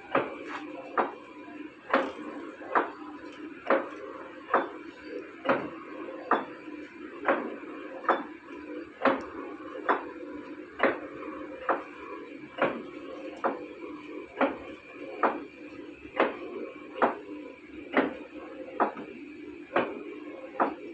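Large lathe running slowly with a big faceplate, boring through plates bolted to it: a steady machine hum with a sharp metallic knock repeating about once a second.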